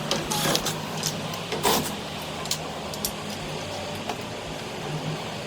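Knocks and scraping of tools on a PVC window frame as its upper section is taken apart, over a steady low hum.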